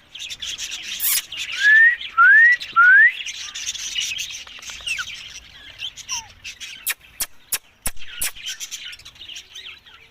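Ringneck parrots chirping and chattering, with three loud rising whistles in quick succession about a second in. A run of sharp clicks follows from about seven seconds in.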